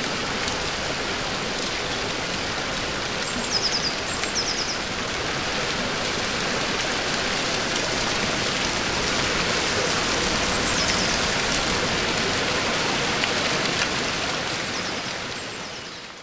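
Small forest stream running over mossy rocks, a steady rush of water, with a few short high chirps above it; the sound fades out near the end.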